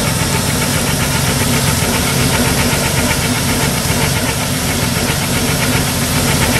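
Ford 300 inline-six engine of a 1980 Ford E-150 van running steadily, with a fast, even ticking beat.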